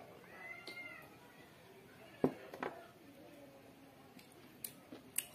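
A cat meowing: one meow that rises and falls in pitch in the first second. A few sharp clicks and knocks follow, the loudest a little past two seconds in.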